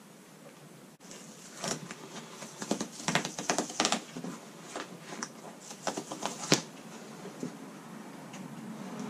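Irregular taps, clicks and rustling as hands handle a wooden scraper and small towels on a jet ski's fiberglass deck. They start about a second in, with one sharper tap about six and a half seconds in.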